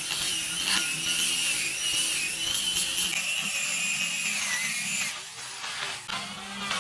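Electric angle grinder with a sanding disc running against wood, a steady high whine over the rasp of the sanding. Its pitch sags slightly under load, and it drops quieter about five seconds in before picking up again near the end.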